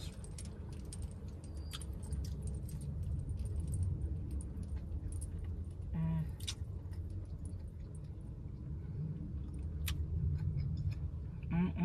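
Close-up eating sounds: scattered small clicks and crackles of cooked lobster tail and shrimp shells being picked apart by hand, with a brief hummed "mm" about six seconds in. A steady low rumble runs underneath.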